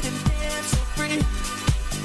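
House music in a DJ mix: a steady four-on-the-floor kick drum, about two beats a second, under bass, synth notes and hi-hats.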